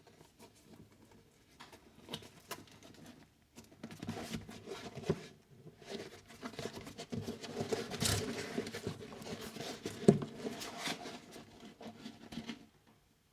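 Hands handling motorcycle shoes and their packaging: irregular rustling and scratching with light taps, busiest in the middle, and a sharper knock about ten seconds in.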